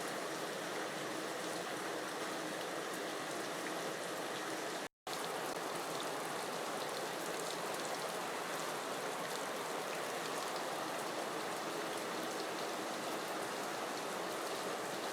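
Steady rain falling, a continuous hiss with fine drop ticks, cut by a brief gap of silence about five seconds in.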